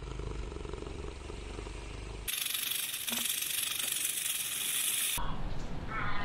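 A snake hissing: one steady hiss about three seconds long that starts and stops abruptly, after a low rumbling noise. Near the end comes a faint wavering animal call.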